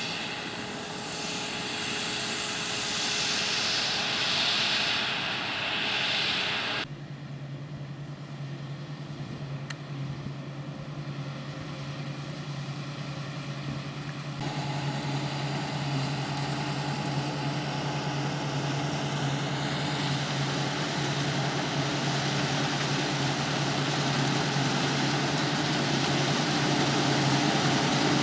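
Claas Dominator 140 combine harvester running while harvesting barley: a steady diesel engine drone mixed with the rush of the threshing machinery. About seven seconds in, the sound changes abruptly to a lower, steadier engine hum, and the higher rushing noise gradually returns.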